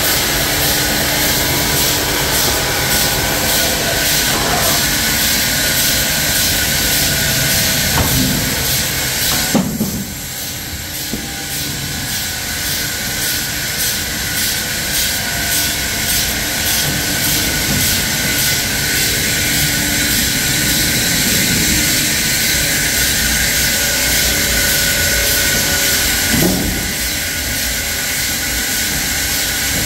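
Sawmill machinery running steadily with a loud, high hiss over a low drone. A few knocks come through it, and the noise drops for a moment about ten seconds in.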